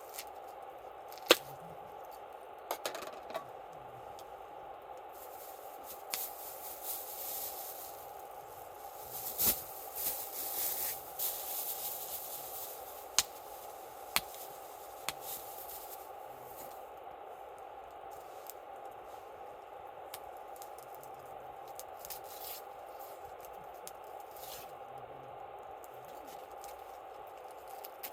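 Wood campfire crackling, with scattered sharp pops over a steady hiss, and a stretch of rustling and scraping handling noise around the middle.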